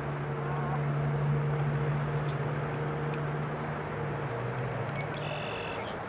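Steady low engine hum, fading out about five seconds in, over a broad outdoor hiss. Near the end comes one short high-pitched call.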